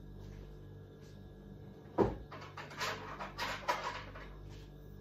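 A knock about two seconds in, then a second or so of irregular rattling and rustling as a small spoon is fetched from the kitchen.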